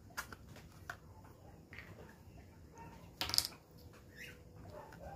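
Hands handling paper craft pieces and string on a tabletop: scattered small clicks and soft rustles, with one louder, short rustle a little over three seconds in.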